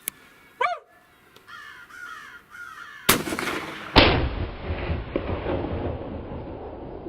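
A predator call giving short yelping 'hurt dog' cries, then about four seconds in a single rifle shot, likely the .243, cracks and rolls away in echo.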